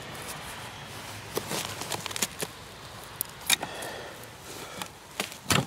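Pry bar working a bent snowmobile ski back into shape: scattered clicks, scrapes and knocks of metal on the ski, with the loudest knocks near the end.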